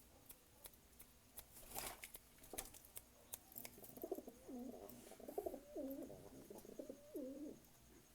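Domestic pigeon cooing: a run of rising-and-falling coos over the second half, after a scatter of sharp taps.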